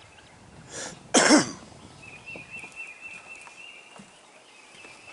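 A person coughs once, sharply, a little after a second in, just after a short breath. A faint, high, wavering tone runs in the background from about two seconds in.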